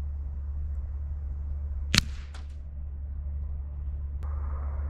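A single shot from a .177 Webley VMX Quantum air rifle: one sharp crack about two seconds in, with a couple of fainter ticks right after it. A low rumble runs underneath, and near the end a click is followed by a steady hiss.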